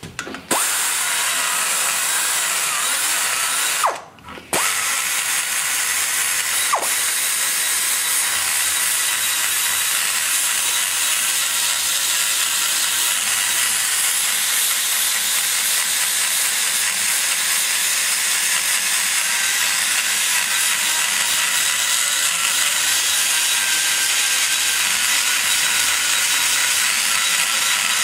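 Die grinder with a flame-shaped carbide burr running at high speed and cutting into the cast-iron exhaust bowl of a small-block Chevy cylinder head, blending the bowl below the valve seat. It stops briefly about four seconds in, spins back up, then runs on steadily.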